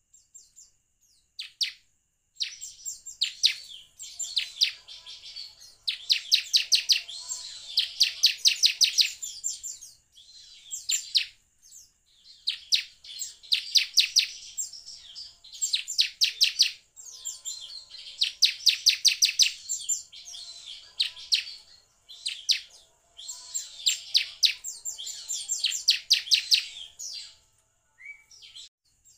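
Bar-winged prinia (ciblek) singing: repeated bursts of rapid, sharp, high chip notes, each burst lasting one to a few seconds with short pauses between.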